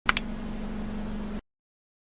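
Two quick clicks, then a steady hiss with a low hum, which cuts off suddenly about one and a half seconds in, leaving silence.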